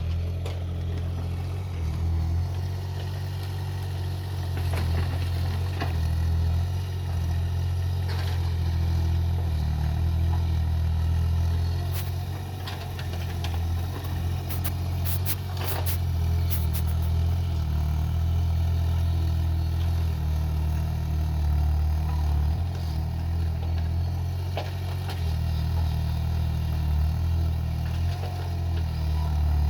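Excavator's diesel engine running steadily as it digs soil, its pitch swelling and dipping with the work, with a few sharp clanks near the middle.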